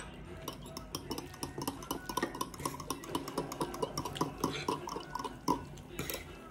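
Kitchenware clinking: utensils knocking and scraping against dishes or a pan, a busy run of light clinks with a sharper knock about five and a half seconds in.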